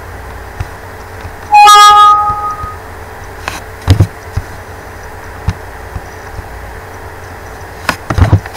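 A loud electronic alert chime of two steady notes sounds about a second and a half in and rings out over about a second. Sharp short clicks follow around four seconds in and again near the end.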